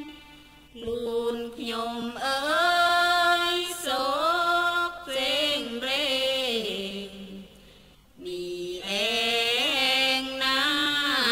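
A solo voice chanting a melodic Thai Buddhist dhamma recitation, holding long notes that slide up and down in pitch. It breaks off briefly twice, about a second in and again about eight seconds in.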